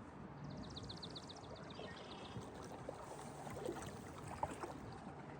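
Paddle strokes in river water, with faint trickling, swishing and a few light knocks. A small bird gives a rapid trill of about a dozen short high notes, slightly falling, in the first two seconds.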